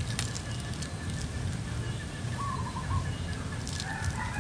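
Birds calling: a short run of chirps about two and a half seconds in, then a rooster beginning to crow near the end, over a low steady background rumble.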